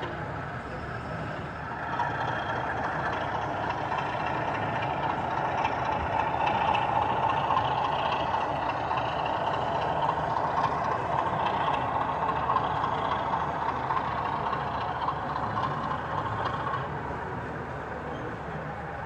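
Model diesel locomotive and its train running along the layout track: a steady mechanical running sound that swells about two seconds in and eases off near the end, over the general hubbub of the exhibition hall.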